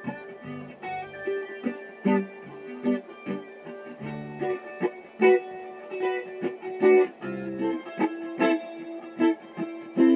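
Guitar played solo: a continuous run of sharply picked notes with low bass notes underneath.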